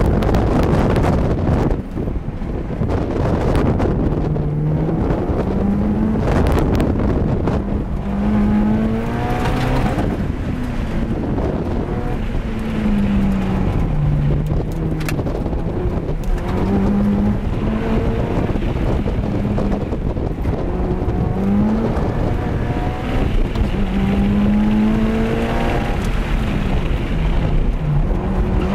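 Mitsubishi Lancer Evolution's turbocharged four-cylinder engine heard from inside the cabin on an autocross run, its revs repeatedly rising and falling with throttle and gear changes, over road and wind noise.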